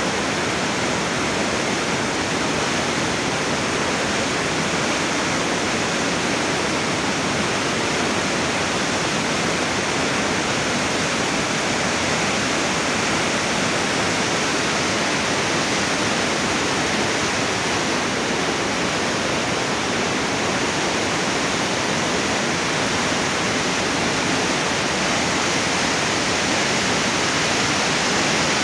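Waterfall on Hardy Creek rushing steadily, an even hiss of falling water that does not change.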